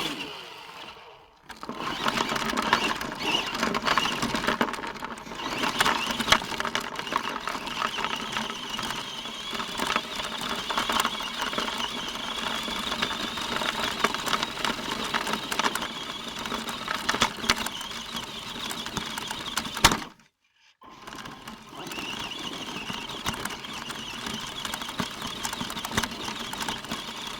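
Radio-controlled car's small electric motor and gears whining as it drives, with many small clicks. The whine stops for about a second about two-thirds of the way through, then starts again.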